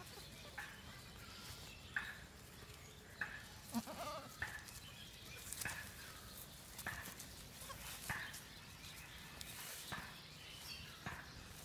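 Goats bleating in short, high calls that recur about every second or so.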